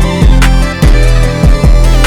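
Loud background music: a beat of heavy bass drum hits, several a second, under sustained melodic tones.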